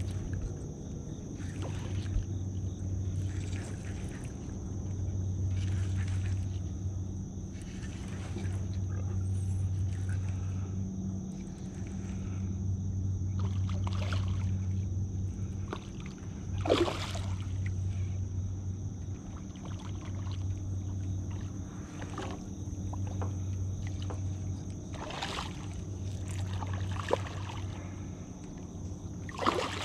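A hooked fish fought on rod and reel from a small boat. A low hum comes and goes in spells of a second or two, with a few sharp splashes as the fish thrashes at the surface, the loudest about halfway through and again near the end.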